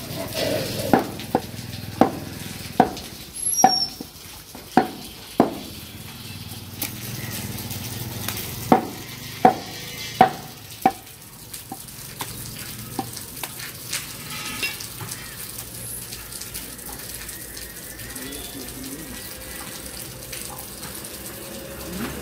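Large butcher's knife chopping beef on a round wooden chopping block: sharp chops, about one or two a second, in two runs over the first eleven seconds, then only faint cuts, over a steady hiss of background noise.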